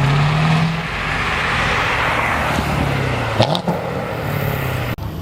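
A car's engine and exhaust running under throttle, the pitch rising in the first half second and then holding, with a short sharp crack about three and a half seconds in. The sound breaks off abruptly shortly before the end and a different car's engine follows.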